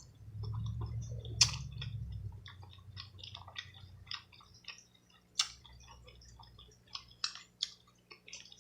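Chewing a mouthful of sauce-covered seafood, with irregular wet smacks and clicks of the mouth.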